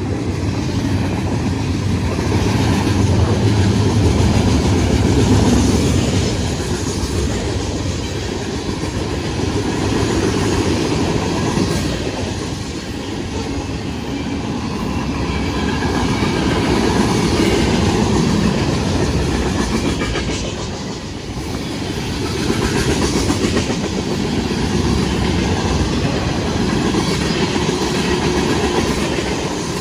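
Freight train passing at speed: the steady rumble of cars rolling by on the rails, swelling and easing in slow waves.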